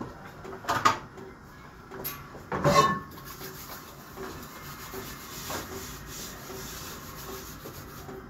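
Metal cooking pots being lifted and set down on a gas stove's iron grates, with a sharp clank about a second in, a louder one near three seconds and a fainter knock later, and scraping between them.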